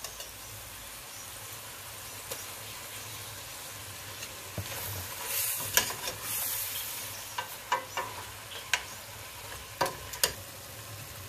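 Mutton, tomato and spice masala sizzling in a stainless steel pot as a steel ladle stirs in yogurt. The ladle scrapes and clinks sharply against the pot several times, mostly in the second half.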